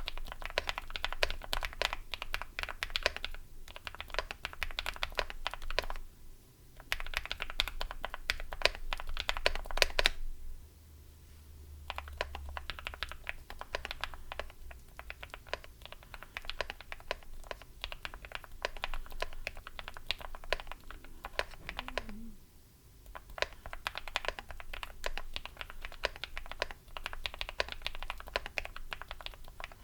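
Typing on a Tofu60 mechanical keyboard with Epomaker Jade Blossom linear switches, PC plate and foam: rapid, continuous keystrokes with a deep, poppy sound. The typing pauses briefly twice and goes softer for a few seconds in between.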